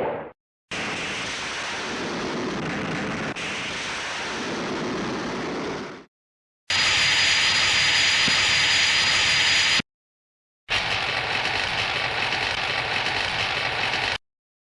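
A run of Showa-era tokusatsu sound effects, three hissing, static-like rushes of a few seconds each with short silences between them. The middle one carries a steady high whine over the hiss.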